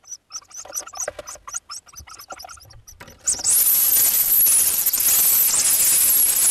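Hoopoe nestlings calling: a run of quick, squeaky chirps, then about three seconds in a sudden loud, steady high hissing chorus.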